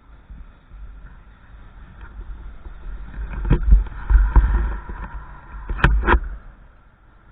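Wind buffeting the microphone: a low rumble that swells in gusts through the middle, with two sharp knocks about six seconds in.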